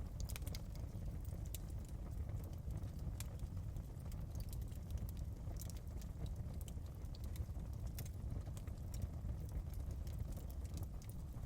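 Wood fire in a fireplace crackling: a steady low rumble of the flames with irregular sharp pops and snaps throughout.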